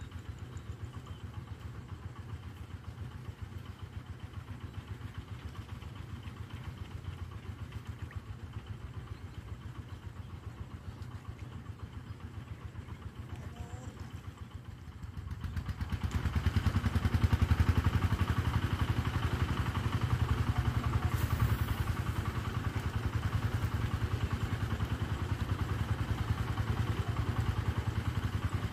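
A small engine running steadily, becoming clearly louder a little past halfway and staying loud.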